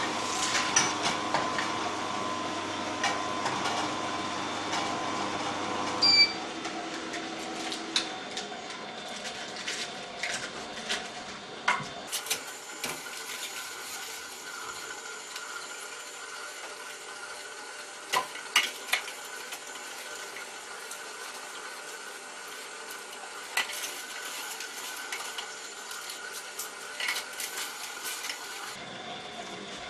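Electric slow juicers running, a steady motor hum with scattered knocks and crunches as lettuce leaves are pushed down the feed chute. A lower hum cuts off suddenly about six seconds in, leaving the Omega VRT 350 vertical slow juicer running on its own.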